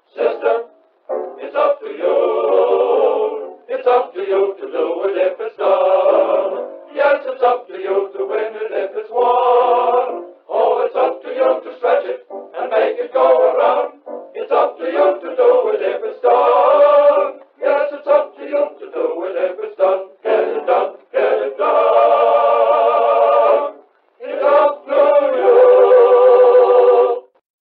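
Voices singing with music in an old film song's finale, thin-sounding with no deep bass or high treble, ending on two long held notes near the end before cutting off.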